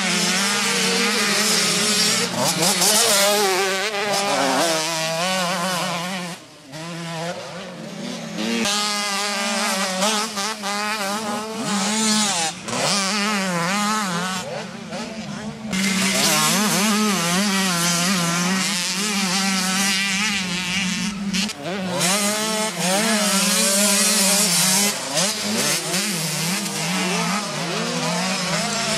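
Motocross motorcycle engines revving hard on a dirt track, the pitch climbing and dropping again and again as riders open the throttle and shift. Several bikes are heard at once.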